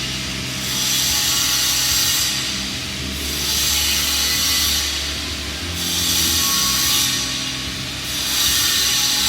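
Flux-cored arc welding on pipe: the arc gives a steady crackling hiss that swells and eases every two to three seconds, over a low steady hum.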